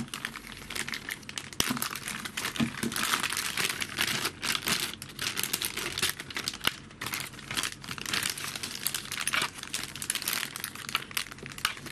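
Clear plastic zip bag crinkling and rustling as hands pull it open and draw a laptop power adapter and its cable out, in quick irregular crackles.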